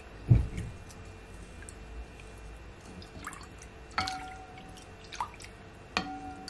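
Wooden spoon stirring ginger lemonade in a glass bowl, the liquid sloshing and dripping. A dull knock comes about a third of a second in, and the spoon taps the glass about four and six seconds in, leaving the bowl ringing briefly.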